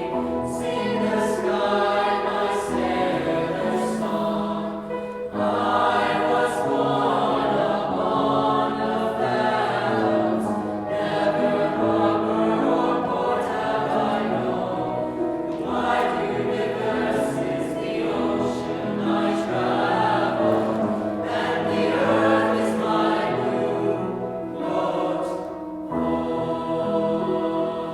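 Choir singing a hymn in sustained, blended harmony.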